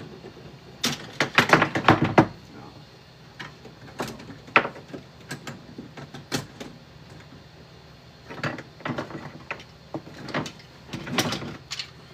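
A series of sharp clicks, knocks and rattles from hard objects being handled, in three bunches, the loudest about a second in.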